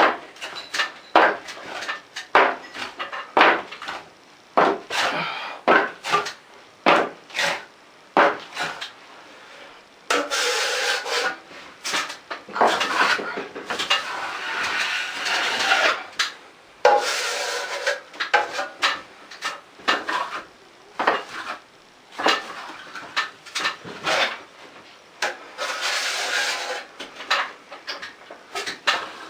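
A 12-inch steel trowel scraping quick-set joint compound across a ceiling. A run of short, quick strokes comes first, then several longer sweeps lasting two to four seconds each.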